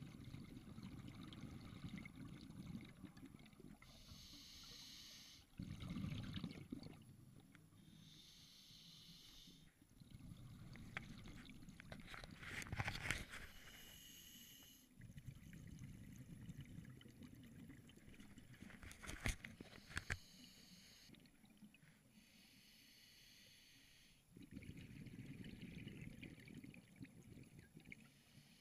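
Scuba diver breathing through an open-circuit regulator underwater: a short hiss on each inhale alternating with a longer low rumble of exhaled bubbles, about five breaths in all. A few sharp clicks come near the middle.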